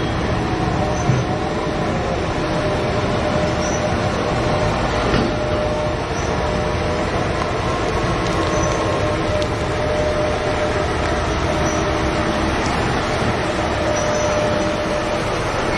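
BelAZ 75710 mining dump truck running as it drives, a steady heavy mechanical rumble with a faint held whine over it.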